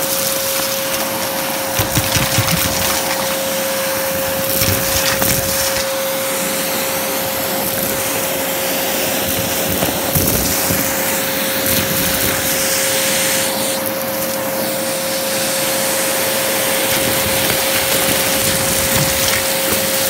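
Dyson vacuum with a motorized brush head running with a steady whine as it sucks up a heap of dust, candy, coins and paper scraps from carpet. The debris rattles and crackles irregularly as it goes up the head.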